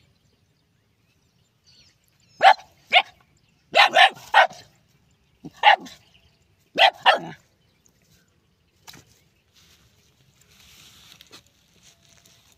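A dog barking at a snake: about eight short, sharp barks in quick groups, starting a couple of seconds in and stopping a few seconds later.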